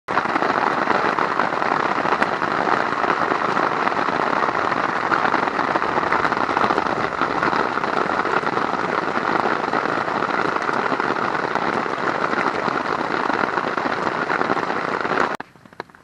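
Heavy rain falling on a tarp shelter, heard from underneath it: a dense, steady patter that stops suddenly near the end.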